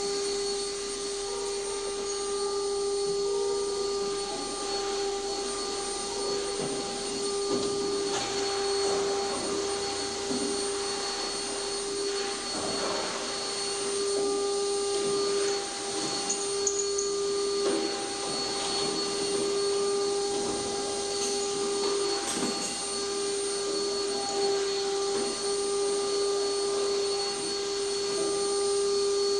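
A car lift's electric hydraulic pump motor running steadily as it raises the car, a constant hum over a hiss, with a few faint knocks along the way.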